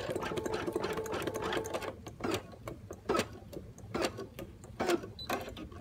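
Brother Innov-is NQ1400E single-needle embroidery machine stitching a basting square on tearaway stabilizer: a fast run of needle strokes over the motor hum for about two seconds, then slower, separate clacks.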